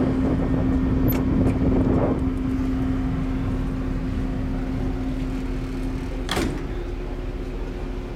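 Steady low drone of a car ferry's machinery with a constant hum, while the rush of wind dies away about two seconds in. A single sharp knock comes about six seconds in, likely a door.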